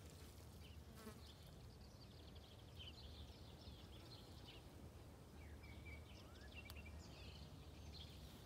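Near silence: faint outdoor ambience, a low steady hum with scattered faint high chirps.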